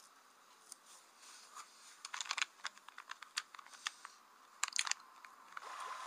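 Faint, irregular crackling and clicking, sparse at first and busiest from about two to five seconds in.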